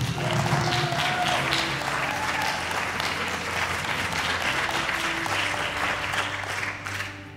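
Audience applauding, with quiet background music underneath; the applause dies away near the end.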